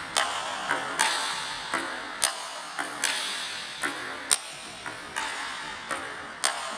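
Table tennis rally: a ball struck by a bat in forehand topspin strokes and bouncing on the table, sharp clicks coming about twice a second, echoing in a sports hall.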